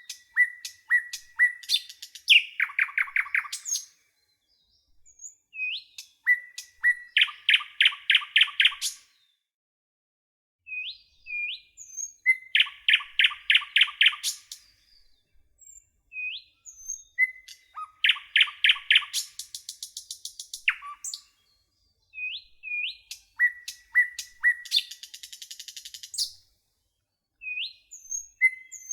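A songbird singing the same phrase over and over, about every five seconds: a few short whistled chirps, then a fast trill of repeated notes, each phrase followed by a brief silence.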